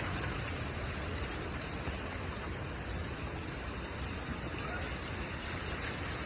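Steady, even rushing noise like running water, with no distinct events.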